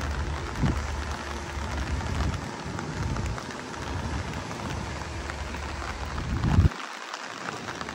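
Steady rain falling, with many small drop ticks and a low rumble that swells about six and a half seconds in and then cuts off suddenly.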